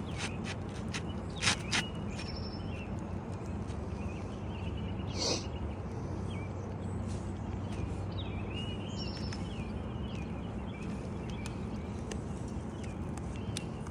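Birds chirping now and then over a steady low hum, with a couple of sharp taps in the first two seconds and a brief scrape about five seconds in.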